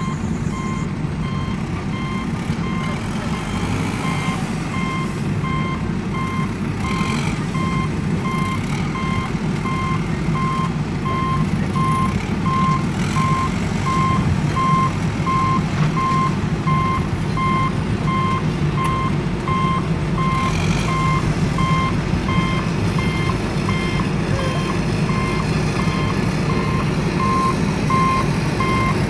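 Truck-style reversing-alarm beeping: one even tone repeating at a steady rate, over a steady low engine rumble.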